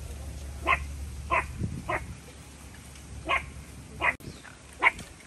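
A dog barking in six short, sharp barks, spaced unevenly, in two bunches of three.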